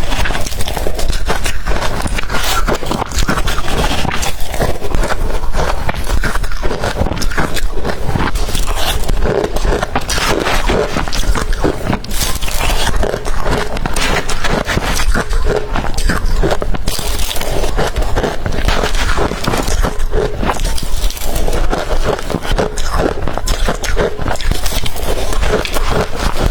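Close-miked biting and crunching of blender-crushed ice: a dense, continuous run of irregular crackling crunches.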